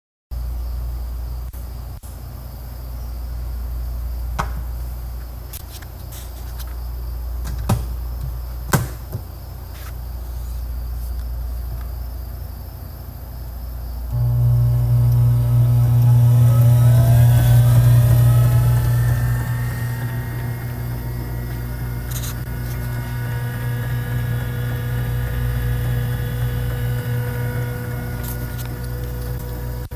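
A few sharp clicks, then about halfway through the pottery wheel's salvaged treadmill DC motor switches on with a loud hum and a whine that rises in pitch as it spins up. It then runs at a steady speed.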